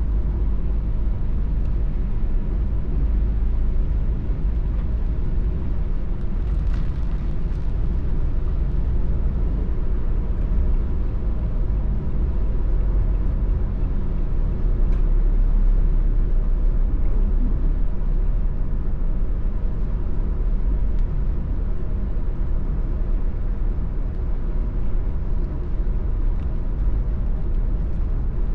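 Steady low rumble of road and engine noise inside a car's cabin while driving on wet roads in the rain.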